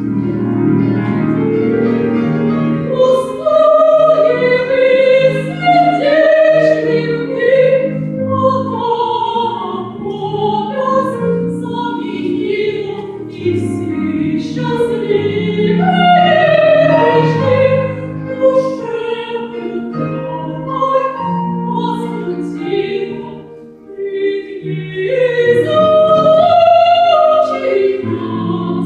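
Operatic-style singing with wavering held notes over a sustained instrumental accompaniment, briefly dropping away about three quarters of the way through.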